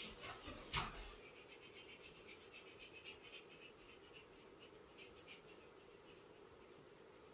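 Massage strokes: quick scratchy rubbing of hands or a wooden massage tool over skin and hair, repeated several times a second, with one louder sharp click about a second in. The strokes thin out over the last couple of seconds.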